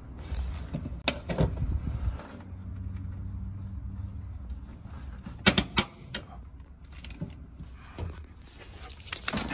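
Handling tools and small parts on a truck cab's bare metal floor: rustling and clatter with sharp clicks, the loudest two close together about halfway through.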